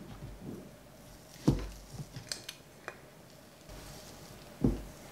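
Soft scraping and small clicks of a silicone spurtle scooping shortening from its plastic tub into a measuring cup, with two dull knocks, about a second and a half in and near the end.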